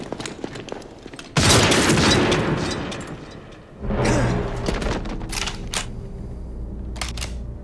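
Film sniper-duel sound effects: a sudden loud rifle shot with a long echoing tail, then a second heavy shot that gives way to a low steady rumble of music. A few sharp knocks follow near the end.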